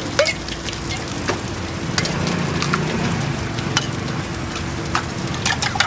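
Ramly burger patties sizzling on a flat-top griddle, a steady frying hiss broken by scattered sharp clicks and knocks, over a faint steady hum.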